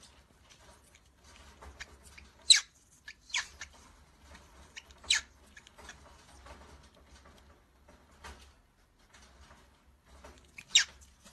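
Cockatiel giving several short, sharp chirps, each sweeping down in pitch, with the loudest a few seconds in and near the end, over faint scratching and rustling.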